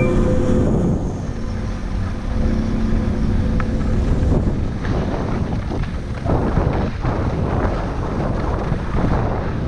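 Wind buffeting the microphone of a skier's camera during a fast downhill run, over the scrape of skis on snow. From about five seconds in, the skis hiss and chatter through chopped-up snow in repeated bursts.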